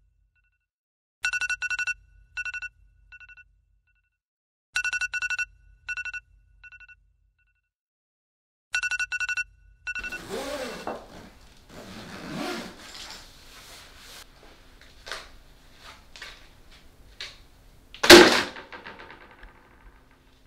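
An electronic phone ringtone: three rounds of quick beeping pulses with a fading echo, about four seconds apart, that stop about ten seconds in. Then rustling and handling noise as a fabric suitcase is packed, with one loud thump near the end.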